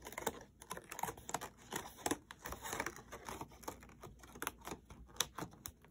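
Stiff construction paper crinkling in many small, irregular clicks as the cut fringe tabs around a paper circle are bent back by hand.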